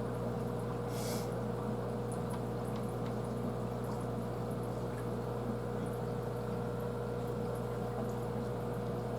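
Aquarium filter or pump running with water trickling: a steady hum and water noise, with a brief hiss about a second in.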